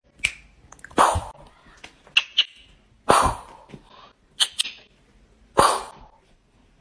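A series of short soft thumps and taps on a bed, about ten in all at irregular intervals, the three loudest about two seconds apart, while a kitten plays.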